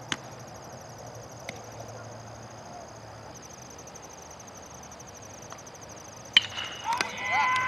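A baseball bat cracks once against a pitched ball about three-quarters of the way through, followed at once by shouting voices. A steady high insect chirr runs underneath.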